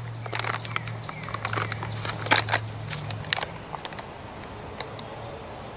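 Plastic MRE beverage pouch being handled, crinkling with scattered sharp clicks that are densest in the first three seconds and then thin out.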